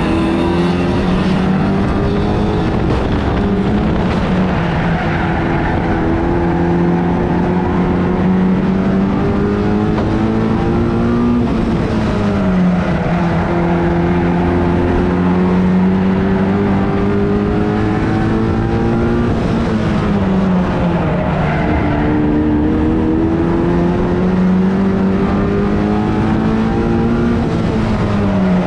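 A 1300cc stock car engine heard from onboard, racing round a short oval. Its pitch climbs steadily along each straight, then falls sharply as the driver lifts for the bend, three times, about every eight seconds.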